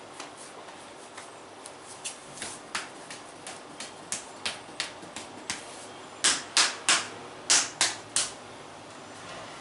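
Hands striking a person's back in percussive massage strokes: a run of sharp slaps about three a second, then six much louder slaps in two groups of three near the end.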